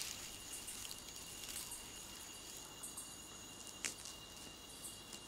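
Faint night-forest insect ambience: a steady, high-pitched insect tone over a soft hiss, with a few faint clicks, the clearest about four seconds in.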